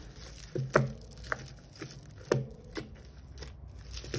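Costume-jewellery beads and chains clicking and rattling against each other as a tangle of faux-pearl and bead necklaces is picked through by hand. A handful of short sharp clacks, the loudest about a second in and again a little past two seconds.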